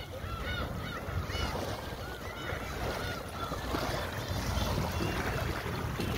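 Many seabirds, likely gulls, calling over one another in short arched cries, thickest in the first couple of seconds, over a steady low rush.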